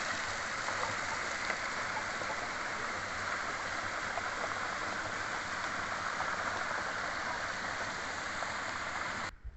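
High-pressure water jet of a hydraulic sluicing nozzle spraying onto a bank, with its runoff rushing down a rocky channel: a steady hiss of water that cuts off suddenly near the end.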